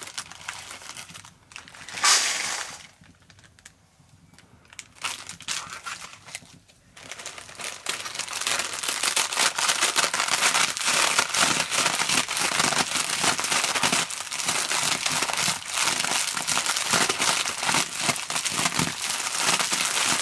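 Plastic instant-noodle packet crinkling as the dry noodles inside are crushed by hand. At first it comes in scattered rustles, then from about eight seconds in it becomes a dense, continuous crackle.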